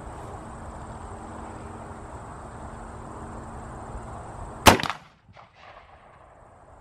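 A single rifle shot from a CZ 527 bolt-action rifle in 7.62x39, about two-thirds of the way in, with a brief tail of fainter echoes.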